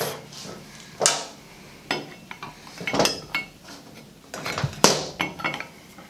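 Scattered sharp metal clinks and taps as a pulley puller and hand tools knock against a cast-iron water pump pulley while the puller is set up, about half a dozen clinks spaced unevenly.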